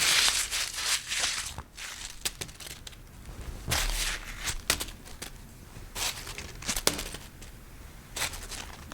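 Paper being crunched and crumpled by hand, a dense crackling for the first second and a half, then shorter intermittent crunches with sharp crackles.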